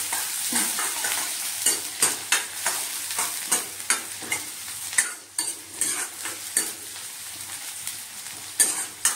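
Sliced onions sizzling as they fry in oil in a metal kadai, with a steady hiss. A steel ladle scrapes and knocks against the pan in irregular stirring strokes, a stroke or two a second, with a pause shortly before the end.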